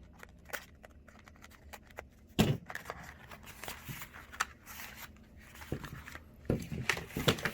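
Product packaging being opened and handled by hand: scattered clicks and rustles, with a louder knock about two and a half seconds in and a few more knocks near the end.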